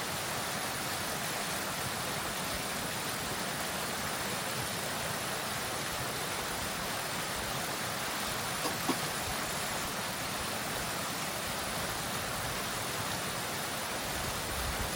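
Steady rushing noise with no distinct tone, with two faint clicks about nine seconds in.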